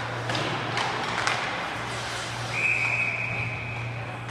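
A few sharp knocks of sticks and puck on the ice over a steady arena hum, then a referee's whistle blows one long steady blast about two and a half seconds in, stopping play.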